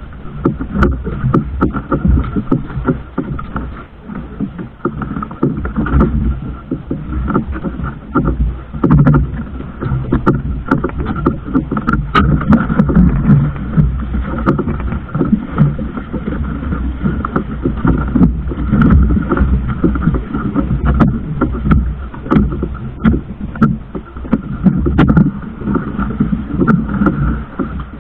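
Motor boat running at sea: a loud, steady engine drone with a constant high whine, over an uneven rush of water and wind, with scattered knocks.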